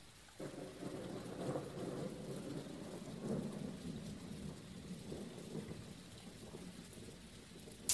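Thunder rumbling low and uneven with rain, fairly quiet, starting about half a second in and ending in a sharp crack. It is a storm effect leading into a song.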